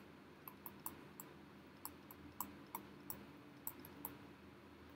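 Faint, irregular clicks of a stylus tapping on a pen tablet while words are handwritten, about a dozen short ticks over low background hiss.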